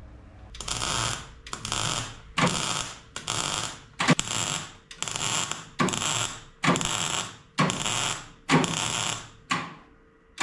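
Rhythmic scraping strokes, about one a second, each starting sharply and fading over about half a second.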